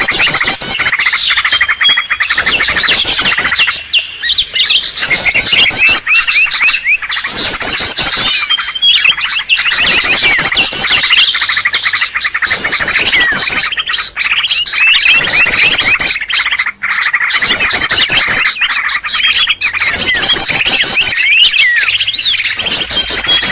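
Green leafbirds (cucak ijo) in an agitated, noisy chorus: continuous loud chattering and squawking, broken every second or two by bursts of fast, high, looping trills. This is the excited 'ribut' calling that is used as a lure to draw wild birds in.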